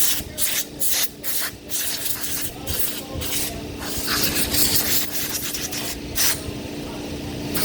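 Small generator engine running with a steady hum, overlaid by repeated short hissing bursts, many in quick succession at first, then a longer one around the middle and a brief one near the end.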